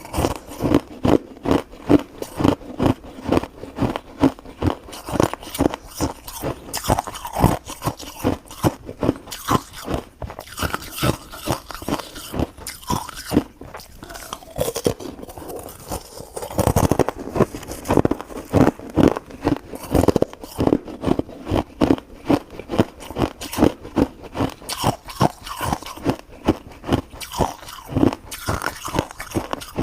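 Close-up crunchy chewing, a steady run of bites about two to three a second, with a short pause about halfway through.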